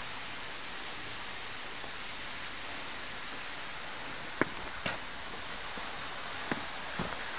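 Steady rush of falling water from a waterfall and stream. From about halfway through come a few separate footsteps on stone steps.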